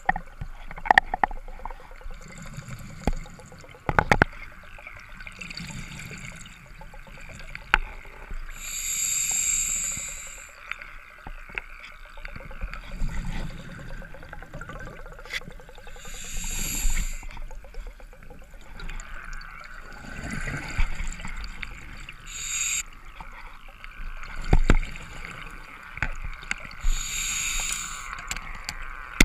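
Open-circuit scuba regulator breathing heard underwater: a hissing, bubbling breath cycle about every five or six seconds as the diver inhales and exhales bubbles. Sharp clicks and knocks now and then, from gear touching the camera housing.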